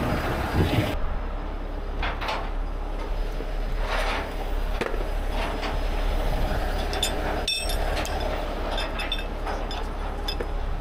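Heavy-truck diesel engine idling with a steady low rumble. Near the end come light metallic clinks of steel shackles being handled.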